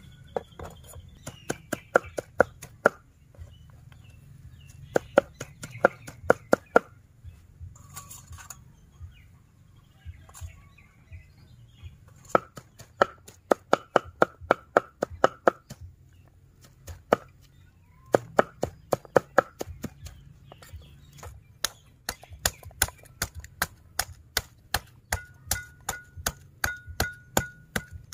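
Meat cleaver chopping cooked pork on a round wooden chopping board: quick runs of sharp knocks, about five or six a second, in bursts of a few seconds with short pauses between.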